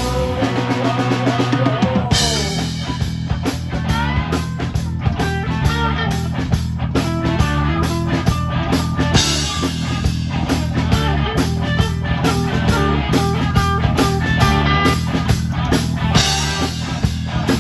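Live rock band playing, with drum kit, electric guitars and bass. After a sparser opening, the bass and drums come back in full about two seconds in and keep a steady driving beat.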